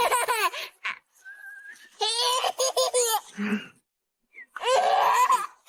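People laughing hard in three bouts, near the start, about two seconds in, and again near the end.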